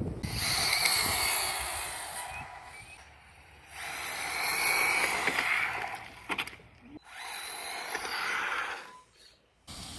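Brushless 1/10-scale RC drift car (HSP Flying Fish) accelerating on asphalt in three bursts: a high motor whine with tyre hiss, each run starting suddenly and fading away over two to three seconds.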